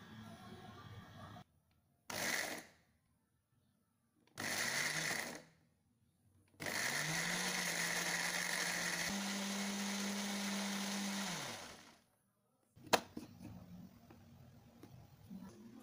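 Philips electric blender grinding a wet chili and shallot spice paste: two short pulses, then one longer run whose motor pitch steps up partway through before spinning down. A sharp click follows as the jar is lifted off the motor base.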